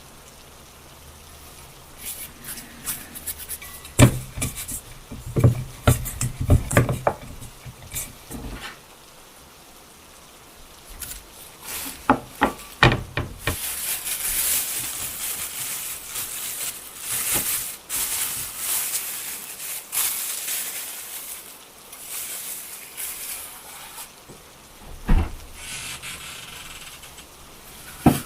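Kitchen prep sounds: a run of knocks and taps of utensils on wood and dishes, some with dull thuds, then about ten seconds of steady hissing, with another knock near the end.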